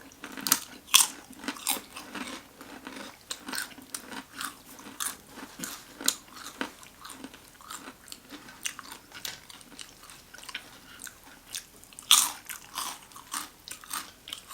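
A person crunching and chewing a toasted sandwich close to the microphone, with many crisp clicks. The loudest crunches come about a second in and again near the end.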